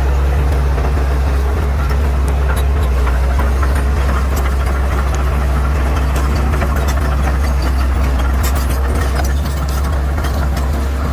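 Bulldozer's diesel engine running steadily with a deep low drone, with scattered sharp cracks and clicks over it.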